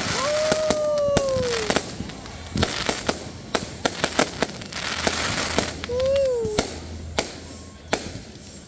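Fireworks display: aerial shells bursting in a dense run of sharp bangs and crackles over a constant hiss, thinning out toward the end. Two sliding tones rise and then fall over it, one just after the start and one about six seconds in.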